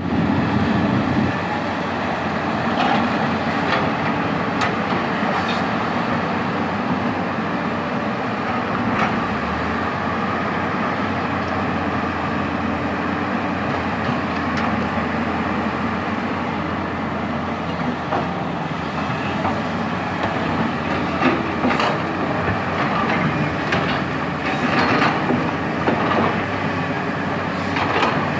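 Sany excavator's diesel engine running steadily while digging, with a few short knocks as the bucket works the coal and rock.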